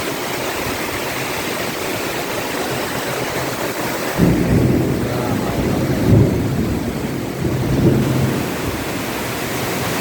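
Heavy tropical rain pouring down in a steady hiss. About four seconds in, thunder breaks in with a deep rumble that swells twice and dies away after about four seconds, leaving the rain alone.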